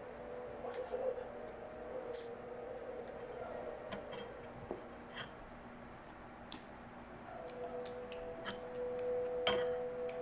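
Sounds of a small child eating noodles: scattered light clicks and taps. A steady hum underneath grows louder in the last few seconds.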